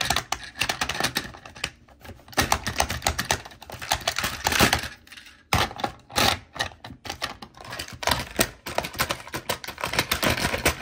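Rapid clicking and rattling of a diecast metal toy fire truck being pushed and wiggled against a plastic playset, the wheels and body knocking on the plastic because the truck is too big to fit the station's bay.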